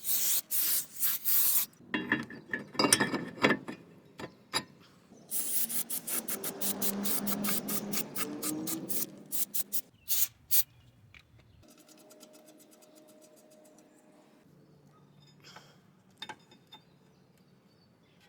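Quick back-and-forth scrubbing strokes on brake parts during cleaning, in several bursts with a longer continuous stretch in the middle, then only faint handling clicks near the end.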